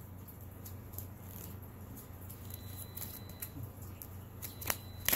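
Quiet handling of boxed and packaged items, soft rustling with scattered light ticks and two sharper clicks near the end.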